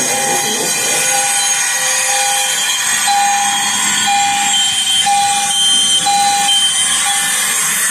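Several fire alarm horns and sounders going off at once: a loud, dense blare with a tone pulsing about once a second, joined by a higher beep near the end.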